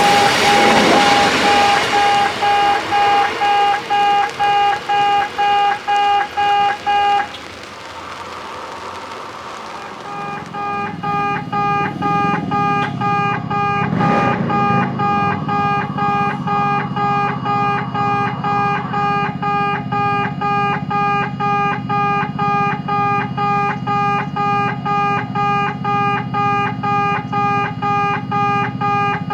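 Kintetsu station level-crossing alarm sounding its electronic "pee-pee-pee" tone, repeated about twice a second. It stops about seven seconds in and starts again about three seconds later, with a low rumble underneath from then on.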